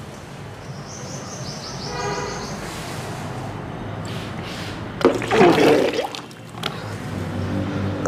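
Retching during kunjal kriya, the yogic practice of drinking lukewarm water and then bringing it back up, with water gushing into a plastic tub. It comes in a loud burst about five seconds in and again at the end.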